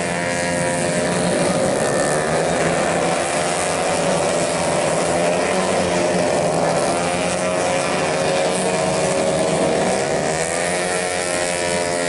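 Several tuned 131cc race scooters running at high revs together, their overlapping engine notes rising and falling.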